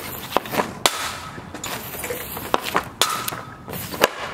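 Hockey stick and pucks on a plastic shooting pad: a series of sharp cracks, roughly one a second, as the blade strikes pucks for shots.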